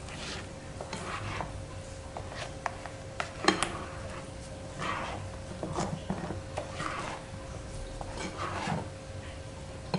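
Rubber spatula scraping thick banana cake batter out of a glass mixing bowl into an aluminium tube cake pan: about eight short strokes, with a sharp knock of the bowl against the pan about three and a half seconds in.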